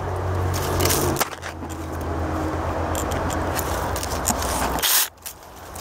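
Small 24 V cordless electric mini chainsaw cutting into a thick branch, its motor running steadily under load with a brief dip about a second in, then stopping abruptly near the end. The motor is weak for wood this thick and keeps bogging and stopping mid-cut.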